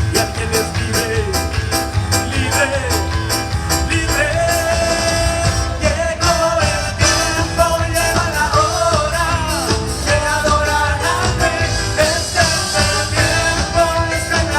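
Live band playing upbeat Latin worship music: a steady fast drum beat and bass under a wavering melodic lead line.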